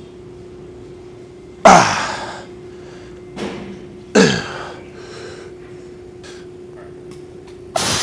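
A man grunting hard as he presses a pair of heavy 100-pound dumbbells. There are four sharp grunts a second or two apart, the second softer, each dropping in pitch as it fades.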